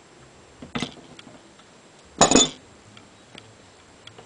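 Metal clicks and clanks from a steel pipe wrench working a brass nipple loose from a galvanized fitting: a sharp click about a second in, then a louder clank with a brief metallic ring a little after two seconds, with light ticks between.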